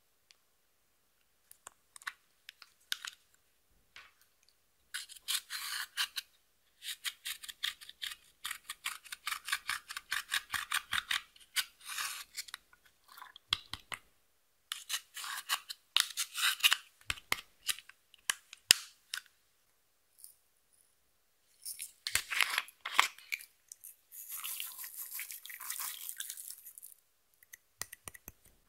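Rapid dry scratching and scraping of pressed eyeshadow being broken up and dug out of a compact palette's pans, in bursts of a few seconds with short pauses, and a longer steady rasp near the end.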